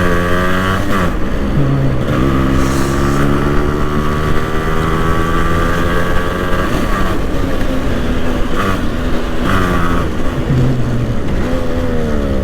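Yamaha RX135's single-cylinder two-stroke engine running under way, its note rising and dropping with throttle and gear changes and holding steady for several seconds in the middle.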